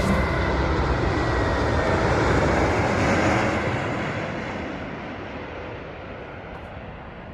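Jet airliner's engine roar, loud for about three seconds and then fading steadily as the aircraft moves away, the higher part of the roar dying out first.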